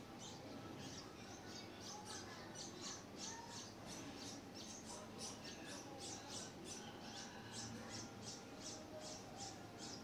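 Red-whiskered bulbul nestlings begging at the nest: a steady run of thin, high-pitched cheeps, about three or four a second, as the parent feeds them.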